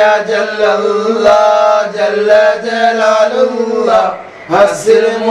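A man's voice chanting a slow, drawn-out devotional melody with long held notes, breaking off briefly for breath about four seconds in.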